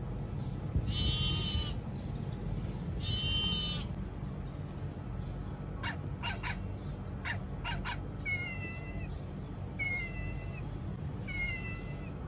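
Recorded animal sounds played by a children's sound book's button panel as its buttons are pressed in turn: a lamb bleating twice, then a few short puppy barks, then a kitten meowing three times, each meow falling in pitch.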